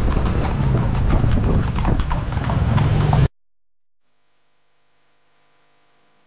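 A horse's hooves clip-clop on the road as it pulls a bendi, a West Sumatran horse-drawn carriage, over a low rumble. The sound cuts off abruptly about three seconds in, leaving near silence.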